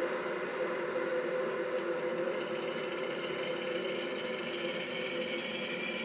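Electric kettle heating water on a DC supply: a steady rushing hiss, with a higher hissing band joining about two seconds in as the water heats toward the boil.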